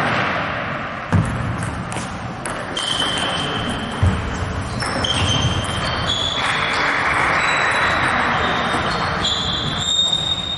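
Table tennis rally in a reverberant sports hall: sharp, irregular clicks of the celluloid ball on bats and table, with short high squeaks from about three seconds in, over the echoing noise of play at other tables.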